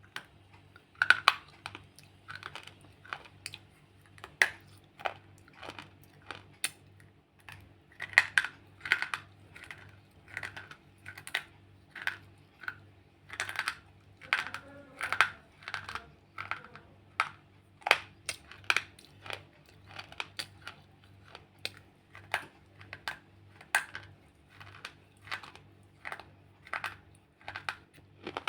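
Water-wetted slate pencils being bitten and chewed close to the microphone: a steady run of sharp, crisp crunches, about two a second.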